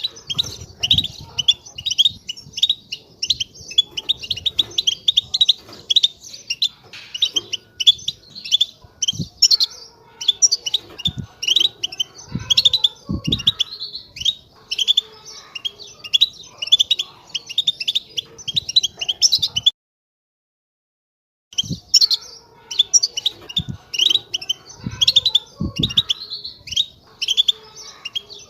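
European goldfinch singing a fast, continuous twittering song (the 'tabtaba' twitter) of rapid chirps and trills, with a few low thuds. The song cuts out completely for about two seconds a little past the middle, then resumes.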